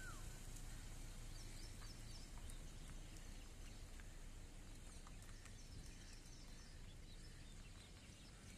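Faint outdoor ambience: a steady low rumble, with small birds chirping now and then and a whistled rise-and-fall call right at the start.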